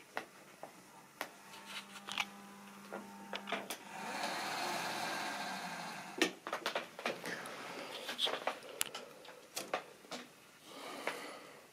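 Model railway train running: a small electric locomotive motor whirring, loudest for a couple of seconds near the middle, with irregular clicks of wheels over rail joints.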